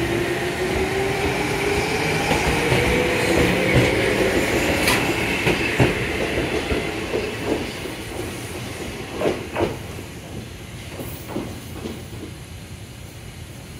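Toyama Chihō Railway 14760-series electric train pulling out and accelerating away: a motor whine rising in pitch, wheels clacking over rail joints a few times, the whole sound fading as the train recedes.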